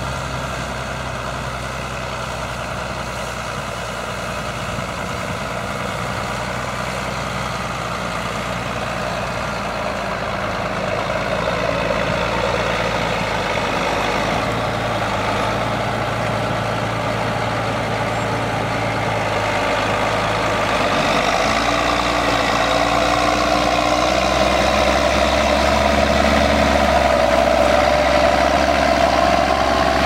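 John Deere 7810 tractor's six-cylinder diesel engine working steadily under load while pulling a reversible plough, growing louder as the tractor comes up close.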